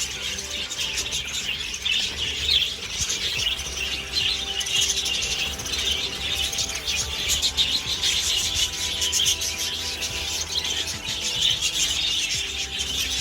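Many budgerigars chattering and chirping all at once, a continuous dense twittering.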